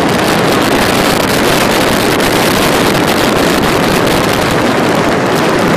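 Loud, steady wind rush on the microphone of a motorcycle at motorway speed, with the bike's engine running underneath.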